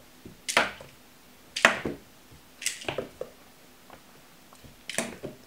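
Four sharp taps, about a second or more apart, each with a short ringing tail; the second is the loudest.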